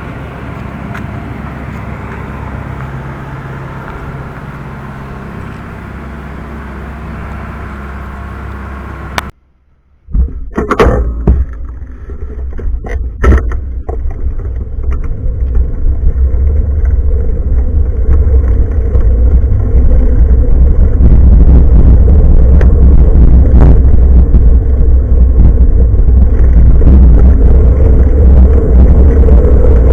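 Bicycle ride noise picked up at the handlebars: a steady low rumble of wind and road. About nine seconds in the sound drops out for under a second. A few sharp knocks follow, then the low rumble builds over several seconds to a loud, buffeting level and stays there.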